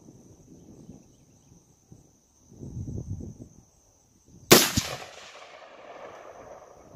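A single shot from a Palmetto State Armory AR-15 in .223/5.56: one sharp crack about four and a half seconds in, followed by an echo that fades over about two seconds.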